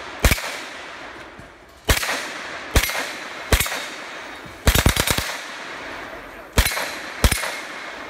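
A submachine gun firing, mostly single shots a second or so apart with a rapid burst of about four shots about five seconds in, each report trailing off in echo.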